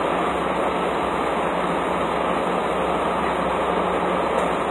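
Steady rushing noise of diesel fuel running through a pump nozzle into a semi truck's tank, with a constant low hum underneath.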